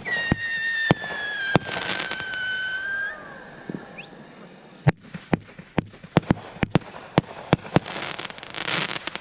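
Fireworks going off: a whistling firework sounds for about three seconds, its pitch slowly falling, then stops, among many sharp bangs and pops. Crackling bursts come between the second and third seconds and again near the end.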